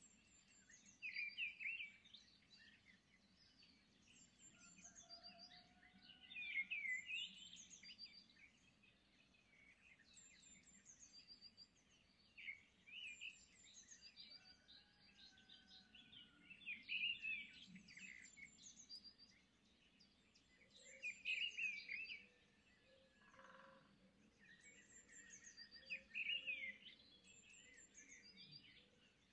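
Small birds chirping and twittering in bursts every four or five seconds, with a few faint thin whistled notes between them.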